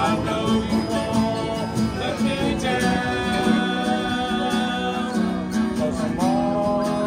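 Acoustic guitar strummed steadily, with a voice singing long held notes that slide up into pitch near the start and again near the end.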